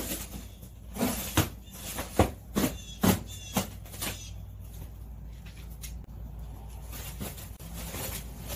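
Plastic stretch wrap being handled and pulled off a pallet: a run of sharp crackles and crinkles in the first four seconds, then quieter rustling.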